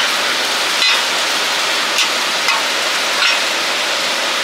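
Oyster omelettes sizzling steadily on a hot flat iron griddle, with a few short clicks of a steel spatula against the griddle.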